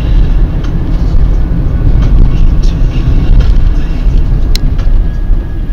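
Car driving along a road, heard from inside the cabin: a loud, steady low rumble of engine and tyre noise, with a sharp click about four and a half seconds in.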